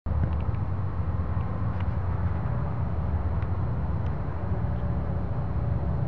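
Low, steady droning rumble from the night sky, like a tuba holding one note, of unidentified source.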